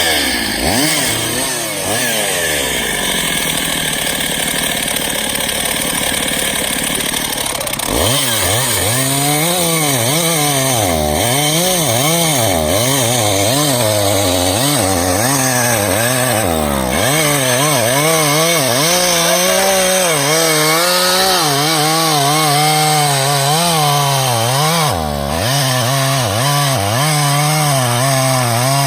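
Stihl chainsaw cutting black locust logs. For the first several seconds the engine runs lower and winds down; about eight seconds in a saw goes to full throttle and keeps running, its pitch dipping and recovering again and again as the chain bogs into the wood.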